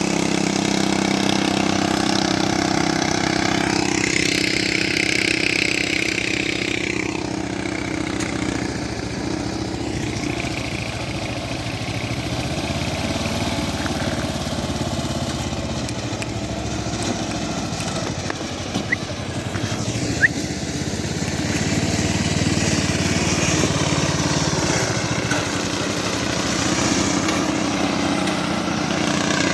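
A small engine running continuously, strong at the start, fainter and wavering in pitch through the middle, then building again near the end.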